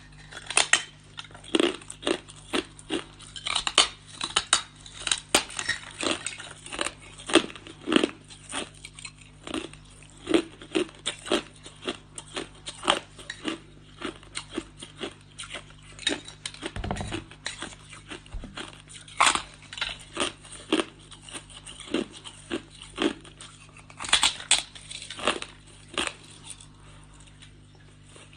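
Close-up biting and chewing of hard ice, heard as a fast series of sharp crunches, two or three a second, that thins out near the end.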